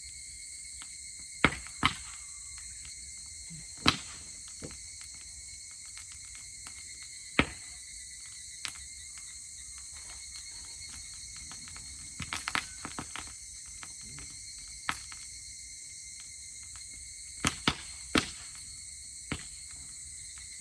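Dry-grass campfire crackling, with about a dozen sharp, separate pops and snaps, a few in quick clusters, over a steady high chirring of insects.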